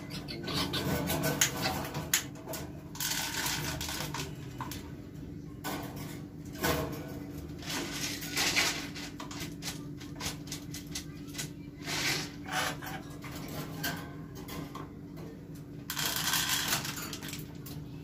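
Hands working at wire and plastic birdcages: irregular clicks, knocks and rattles of the cage parts, with a steady low hum underneath.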